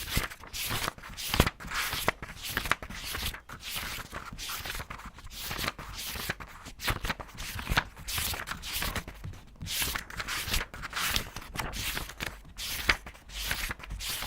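Paper pages being turned quickly one after another, a rapid run of crisp rustles and flaps at about two or three a second.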